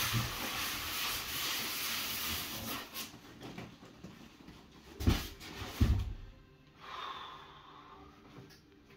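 Plastic wrap and foam packing rustling as it is pulled out of a crate, then two dull thumps about five and six seconds in.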